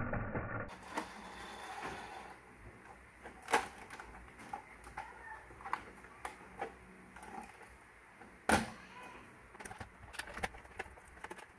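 Handling sounds of a plastic WPL D12 RC truck being turned over on a workbench and worked on with a screwdriver: scattered light clicks and knocks, with two louder knocks about three and a half and eight and a half seconds in.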